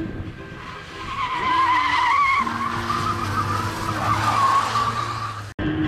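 Škoda rally car's tyres squealing as it slides hard through a tarmac corner, a wavering high squeal over the engine running under load. The sound cuts off abruptly near the end.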